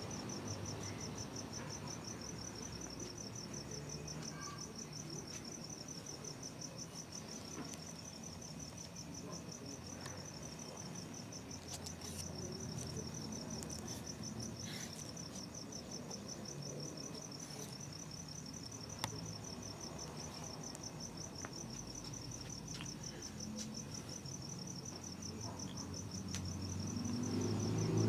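Crickets trilling steadily at night, a continuous rapid pulsing high-pitched chirr over a faint low rumble. Low-pitched noise swells near the end.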